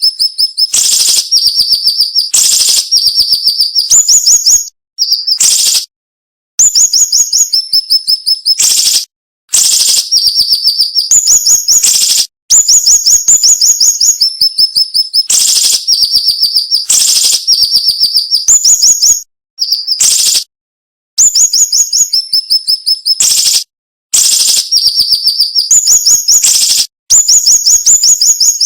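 Song of the bird kept by Indonesian songbird fanciers as 'siri-siri': dense, rapid runs of sharp, high-pitched repeated notes in phrases broken by short pauses.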